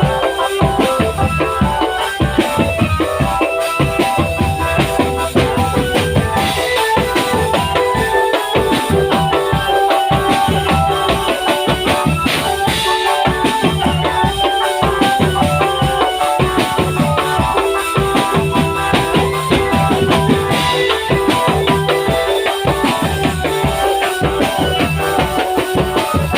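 Drum band music: a steady beat on bass and snare drums under melodic instruments playing a tune without a break.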